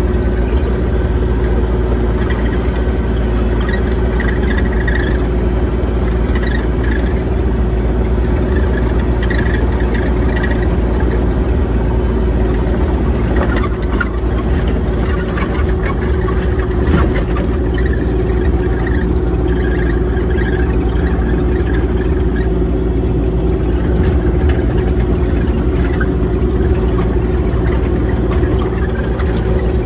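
Excavator's diesel engine running steadily and loud, with faint intermittent squeaks and a short run of clicks and rattles about halfway through.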